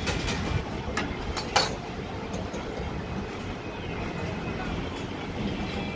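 Steady street background noise with a low traffic hum, broken by a few sharp clicks in the first two seconds, the loudest about a second and a half in.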